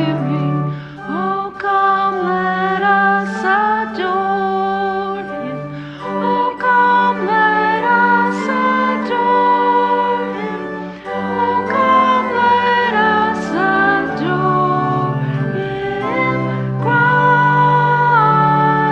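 Congregation singing a hymn together, accompanied by organ, in phrases with brief breaths between them.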